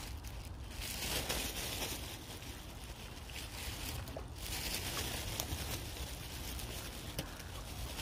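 Outdoor riverside background noise: a steady hiss over a low rumble, with a few faint clicks.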